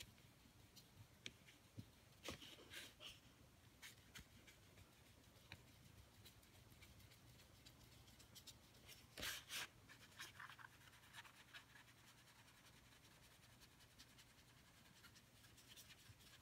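Near silence broken by a few faint, brief scratchy rustles of a water brush working across watercolour paper, the loudest about nine seconds in.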